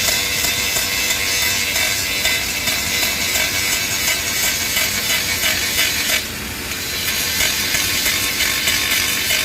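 Arc welding a fillet weld: the steady crackle and hiss of the welding arc, which drops away briefly about six seconds in and then picks up again.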